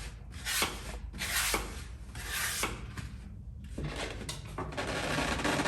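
A dry floral foam block scraping against the inside of a pot as it is forced down in short strokes, then a longer steady rub near the end.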